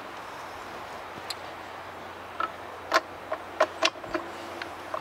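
Steel chainsaw guide bar being fitted onto a Lombard Lightning chainsaw: a scatter of sharp metal clicks and clacks as it knocks against the bar studs and side cover, most of them packed into the second half.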